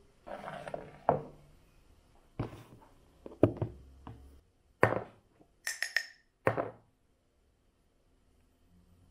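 Kitchenware being handled and set down on a countertop: about seven separate knocks and clinks from a stainless-steel teapot, mugs and ceramic ramekins. A few of the clinks ring briefly about six seconds in.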